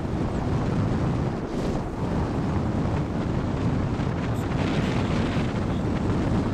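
Wind rushing over the microphone of a camera mounted on a hang glider's wing in flight: a steady, loud rumble of airflow.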